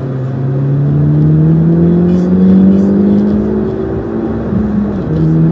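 Road vehicle engine under acceleration, its note climbing steadily in pitch, then dropping sharply near the end.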